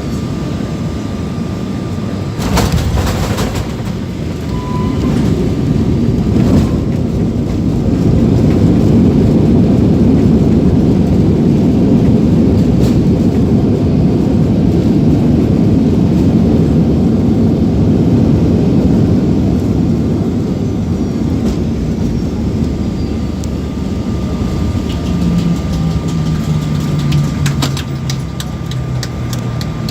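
Inside the cabin of a Boeing 737-800 on its landing roll: a jolt about two seconds in, then the CFM56 engines' roar building in reverse thrust, holding for about ten seconds and easing off, with a falling engine tone near the end as they spool down.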